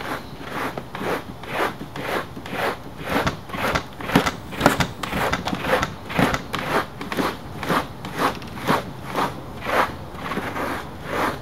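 Small handheld cheese-grater-style rasp plane scraping back and forth over motorcycle seat foam, shaving it down, in a steady rhythm of about two strokes a second.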